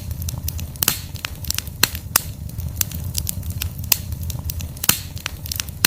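Log campfire crackling, with irregular sharp pops of burning wood several times a second over a low steady rumble.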